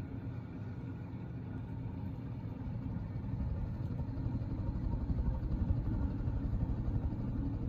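1987 NuTone Slimline 52-inch ceiling fan running on high: a steady low rumble of the motor and the air moving off its blades, growing a little louder in the second half.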